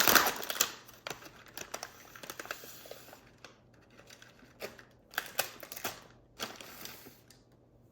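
Plastic cookie packaging crinkling and rustling as it is opened and handled, in irregular bursts with small clicks, loudest right at the start.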